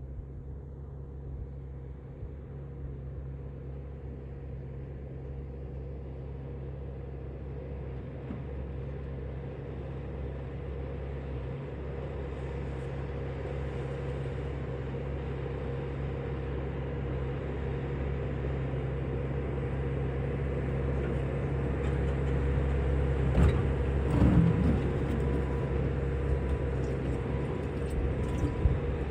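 A motor vehicle's engine running steadily with a low hum that grows gradually louder, and a few knocks and rattles about three-quarters of the way through.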